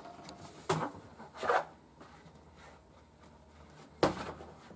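A fabric seat cushion rubbing and scraping against the molded plastic seat shell of a swivel chair as it is fitted in, with two brief rubbing sounds in the first second and a half and a sharp knock about four seconds in as it is pressed into place.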